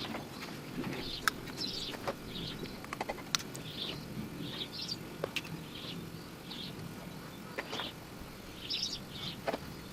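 Birds chirping over and over, short high chirps every second or so, with scattered sharp clicks and knocks.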